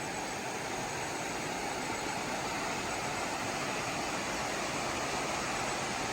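Steady rushing of flowing stream or river water, an even hiss with no breaks or distinct events.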